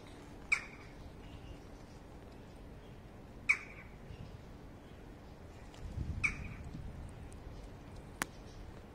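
Three short calls from a penguin, about three seconds apart, with a single sharp click near the end.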